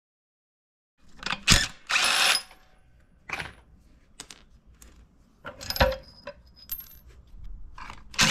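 Silent for about a second, then irregular metallic clinks, clicks and knocks as the nuts, axle and wheel of a 3-ton aluminum floor jack are taken off, with a short rasping burst about two seconds in.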